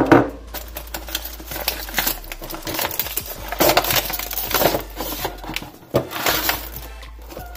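Cardboard box and its plastic tray inserts being slid apart and handled: an irregular run of scraping, rustling and crackling, with sharper knocks near the start and again about four and six seconds in.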